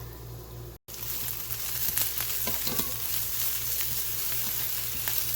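Sliced garlic and shallot sizzling in hot sunflower oil in a pan, stirred now and then, with short scraping clicks. The sound drops out briefly about a second in, then comes back louder.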